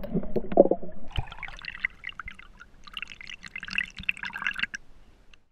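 Water splashing, trickling and dripping around a GoPro in its waterproof housing as it is dipped at the water's surface, ending in scattered crackling drips. The sound cuts off suddenly just before the end.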